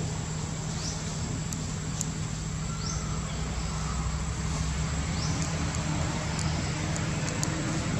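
Outdoor ambience: a steady low hum and hiss, with a short, high, rising chirp repeating every two to three seconds.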